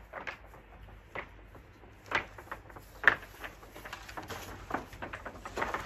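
A bundle of long wooden tongue-and-groove boards being carried, the boards knocking and clattering against each other in irregular short knocks, the loudest about three seconds in.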